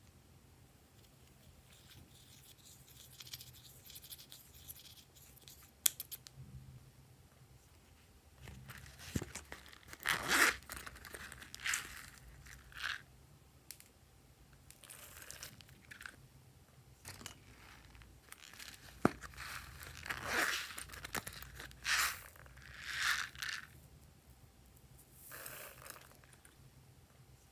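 Quiet handling noises of slime ingredients: faint scraping of a brush in an eyeshadow pot, then a series of short rustling, crinkling bursts as star-shaped sprinkles and other bits are added to a glass bowl.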